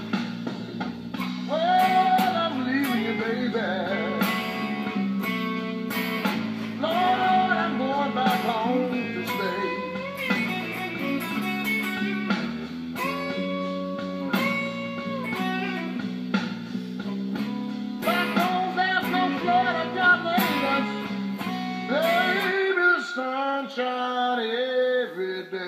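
Gibson Les Paul electric guitar playing a blues lead with string bends over a slow blues backing track of drums and bass. Near the end the bass drops out for a few seconds.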